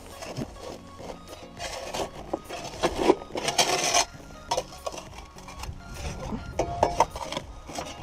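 Irregular scraping and rasping of a hand tool digging packed dirt out of an excavator's steel track undercarriage, with scattered knocks and brief metallic rings, over faint background music.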